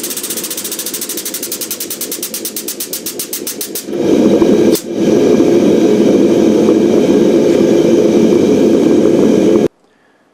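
Air-assisted hydraulic bottle jack's air pump pulsing rapidly as the press squeezes a hot knife blade, the pulses quickening. About four seconds in, a louder steady mechanical drone takes over, with one sharp click a second later, and cuts off suddenly near the end.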